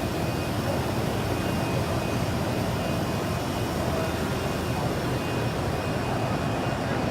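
Steady roar of a crowded machine-tool exhibition hall: a constant wash of running machines and crowd murmur, with no distinct events.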